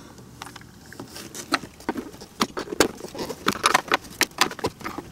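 Small metal clicks and taps of a 13 mm wrench working the mounting bolts of an ignition coil tight. Irregular, several a second, coming thicker in the second half.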